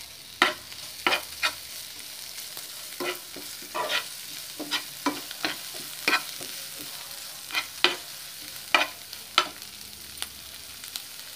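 Vegetables frying in ghee in a hot pan with a steady sizzle, while a spoon stirs them, knocking and scraping against the pan in about a dozen irregular sharp clinks.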